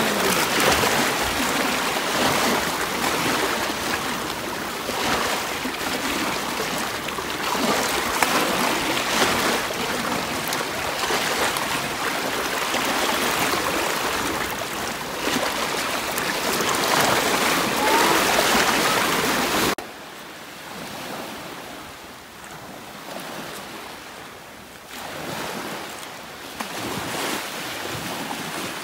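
Sea waves washing and splashing around rocks in shallow water, an uneven rushing that swells and falls. About two-thirds of the way through it drops suddenly to a quieter lapping of small waves.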